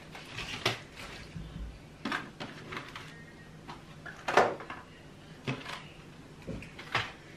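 Things being handled and moved around in a wooden kitchen cabinet: a plastic bag rustling and items knocking against the shelves, about five separate knocks, the loudest about four seconds in.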